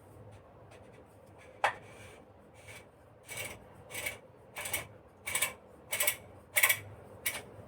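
Oil vessel of a flame safety lamp being screwed onto the lamp body: a sharp click, then about eight short metal rasps in a steady rhythm, one every two-thirds of a second or so, as the threads are turned.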